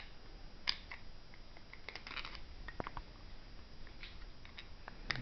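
Faint, scattered clicks and scratches of a small tool tip picking leftover support material out of a white ABS 3D-printed part, with a small cluster of clicks about two seconds in.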